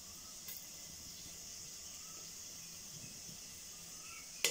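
Whole spices (cinnamon, cloves, cardamom) sizzling in hot oil in a pressure cooker, a steady faint hiss. A sharp click near the end.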